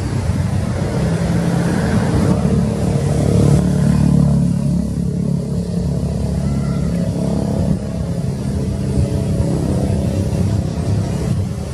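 A riverboat's diesel engine running with a steady low drone, mixed with wind on the microphone; it swells a little about four seconds in.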